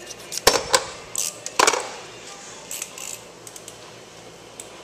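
Hands handling stick-on wheel balancing weights: a quick run of sharp clicks and short scrapes in the first two seconds, then a few lighter clicks.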